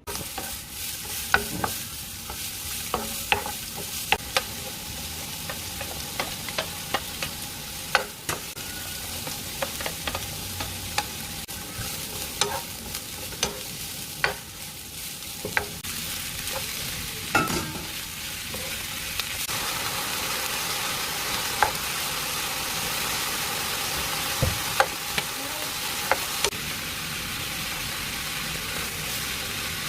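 Food sizzling in a frying pan while a utensil stirs it, with irregular sharp clicks and knocks of the utensil against the pan. The sizzle grows louder about two-thirds of the way through.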